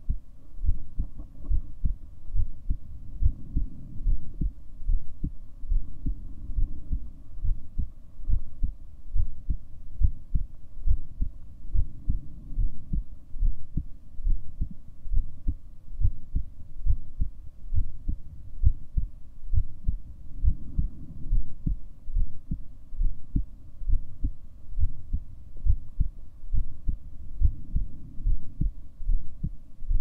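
A person's heartbeat recorded close up: a steady run of low, dull thumps, beat after beat.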